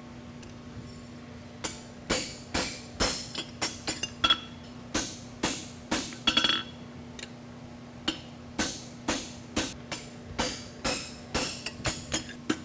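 Hand hammer striking a head stamp into a hot steel horseshoe on the anvil, punching the nail holes on a first pass with a smaller stamp. Sharp ringing metal blows come about two a second, beginning a couple of seconds in, with a break of about a second and a half midway.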